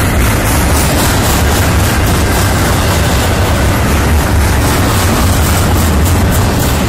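Double-stack intermodal freight train's container well cars rolling past, a loud steady rumble of steel wheels on rail.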